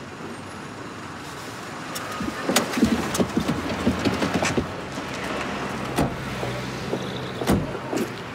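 Background traffic: a steady low engine hum with several sharp knocks or steps, busiest a couple of seconds in.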